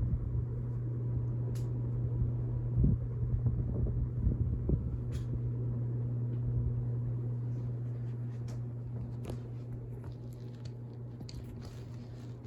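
Hunter 1896 Art Nouveau ceiling fan running, its motor giving a steady low hum over a low rumble that slowly grows quieter, with a few faint clicks.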